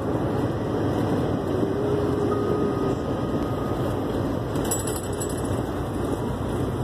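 Steady road and engine noise inside a vehicle's cab moving at highway speed.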